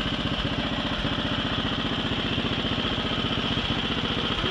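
Allen Roper RT13 garden tractor's engine running at a steady, even pace as the tractor drives through dense weeds.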